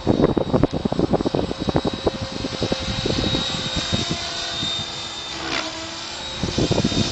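Compass Atom 6HV electric RC helicopter in flight: a steady high motor whine over a lower rotor tone that dips in pitch about five and a half seconds in as it swings past. An irregular low gusty rumble fills the first few seconds and comes back near the end.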